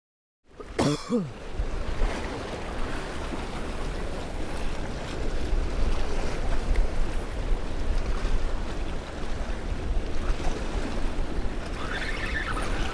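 Ocean waves washing against the rocks at the water's edge, with wind rumbling on the microphone.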